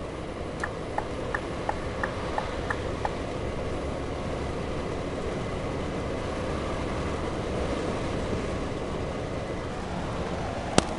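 Cab noise of a 2009 Scania G380 truck at highway cruising speed: the five-cylinder diesel and the road make a steady drone. Early on, a turn indicator ticks about eight times, alternating tick and tock at about three a second, then stops. A single sharp click comes near the end.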